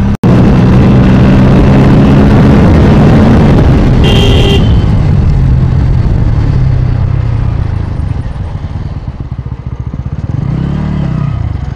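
Bajaj Pulsar N160 motorcycle's single-cylinder engine running while riding, loud and steady for the first several seconds, then easing off as the bike slows near the end. A brief high beep sounds about four seconds in.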